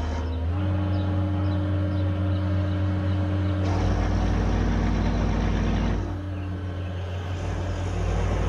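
Takeuchi TL8 skid steer's diesel engine running under load while brush hogging; it revs up half a second in and holds high. A louder, rougher noise comes in from about three and a half to six seconds in, then eases.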